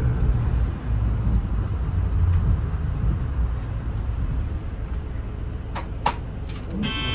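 Yutorito Line guideway bus running along, a steady low rumble heard from inside the cabin. A few sharp clicks come about six seconds in, and a ringing chime-like tone starts right at the end.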